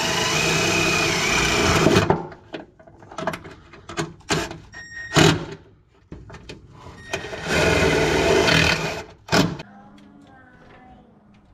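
Cordless impact driver running in two bursts, the first about two seconds long and the second just over a second, driving in a fastener. Between them come a few sharp knocks of tools and parts being handled.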